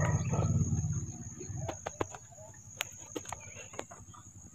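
Chickens clucking in short scattered calls over a steady high-pitched insect drone, with a motorcycle engine idling low for about the first second.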